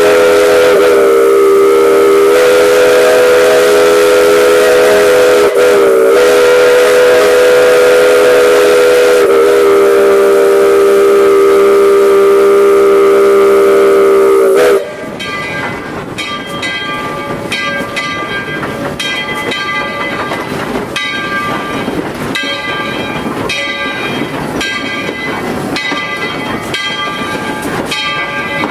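Steam whistle of Tweetsie Railroad No. 12, a narrow-gauge 4-6-0 steam locomotive, sounding one long loud blast of a multi-note chord that dips briefly a few times as the cord is worked, then cuts off suddenly about fifteen seconds in. After it the locomotive is heard running, with a regular beat about once a second.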